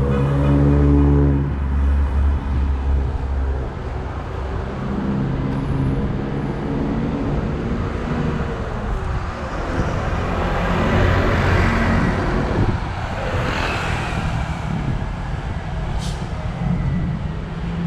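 Road traffic on a city street: engines running low and steady, with a vehicle passing close by, its noise swelling and fading about ten to fourteen seconds in.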